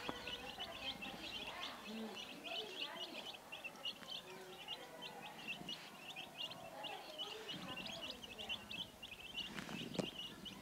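Chicks peeping continuously, a quick run of many short, high peeps every second.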